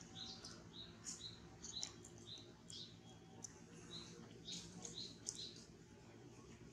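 Faint small-bird chirping: short, high chirps repeating about twice a second, pausing briefly midway, with a few soft clicks among them.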